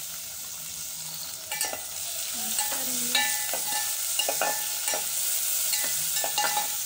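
Onions, tomatoes and green chillies sizzling in oil in an aluminium pot while a metal spoon stirs them, scraping and clinking against the pot many times. The sizzle grows louder about a second and a half in as the stirring starts.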